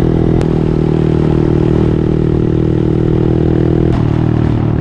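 Honda Monkey's single-cylinder four-stroke engine running steadily under way. There is a click and a small step in the engine note about half a second in, and the note drops slightly near the end.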